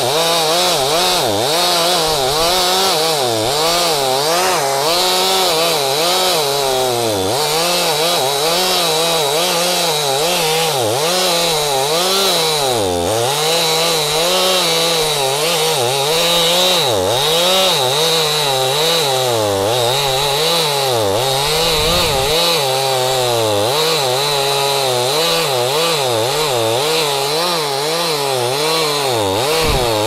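Two-stroke chainsaw running under load as it cuts low through a dead maple's trunk. The engine's pitch keeps dipping as the chain bites into the wood and picking back up, without a pause.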